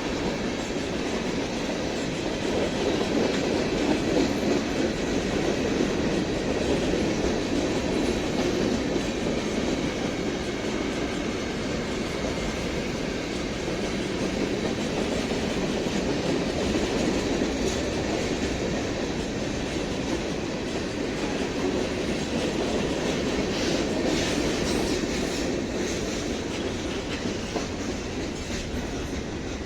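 Freight train rolling past at a steady speed, its wheels clacking over the rail joints in an unbroken rolling noise.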